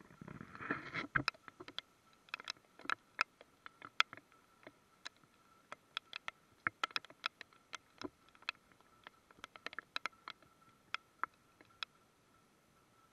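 Raindrops striking the Apex M80 Air action camera, sharp irregular ticks a few a second that thin out toward the end. A brief rustle of handling comes in the first second, and a faint steady high tone lies under it all.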